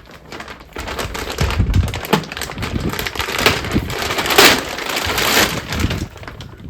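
Plastic packaging crinkling and rustling as it is opened and handled, a dense run of crackles.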